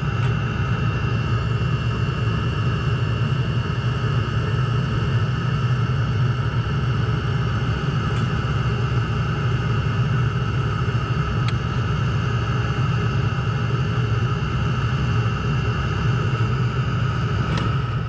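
Exhaust of a VEVOR diesel parking heater, running on waste oil at a high setting with a catalytic converter in its burn chamber, blowing out of its corrugated exhaust pipe with a steady low rumble. A thin steady whine sits above it.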